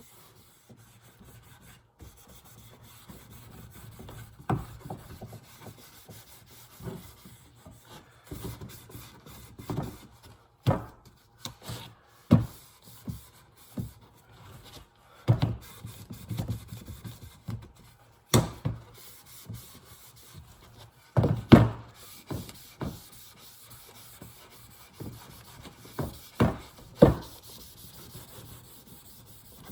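Wood being handled and rubbed, with irregular knocks and clatters of wooden pieces set down or bumped together.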